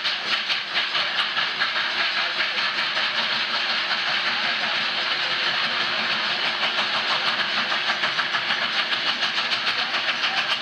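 Union Pacific 3985, a 4-6-6-4 Challenger steam locomotive, working hard as it approaches: a rapid, even beat of exhaust chuffs over a steady hiss of steam.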